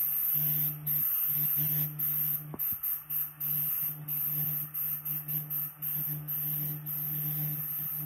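Compressed air hissing from a gravity-feed spray gun in bursts as the trigger is pulled and released: long bursts at first, then shorter, quicker ones from about two and a half seconds in. Underneath is a steady low hum from the homemade air compressor, built from an old air-conditioner compressor, running.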